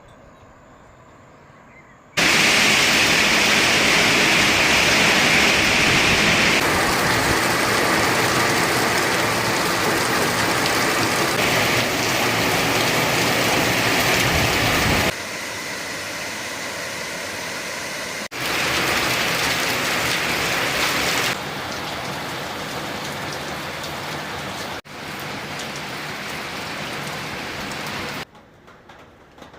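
Heavy downpour of rain, a steady hiss that starts abruptly and jumps in level several times at hard cuts, loudest in the first half.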